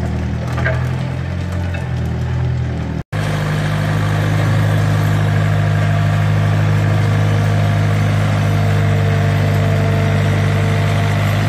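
Road roller engine running steadily at a low, even hum, with a sharp momentary break about three seconds in. The roller is running again, started by wiring straight to the starter to get round a faulty ignition switch.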